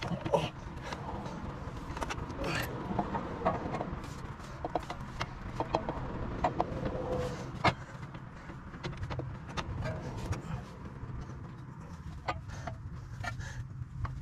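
Scattered light clicks, clinks and knocks of metal parts being handled as a CV axle is worked at the steering knuckle and wheel hub, with one sharper knock near the middle, over a faint steady low hum.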